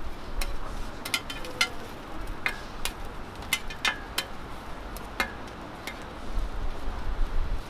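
Two metal spatulas clinking against each other and scraping on a flat steel griddle, about ten sharp clinks at uneven intervals. A low rumble swells near the end.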